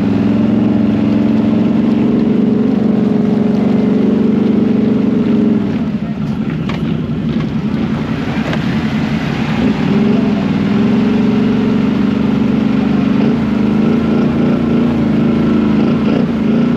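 Four-wheeler (ATV) engine running at a steady pitch while riding, easing off about five seconds in and picking back up about four seconds later.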